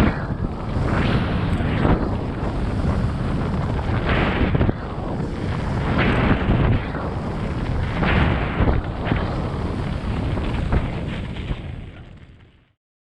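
Wind buffeting the microphone in loud, gusting rumbles, with rough low rumble underneath, fading out near the end.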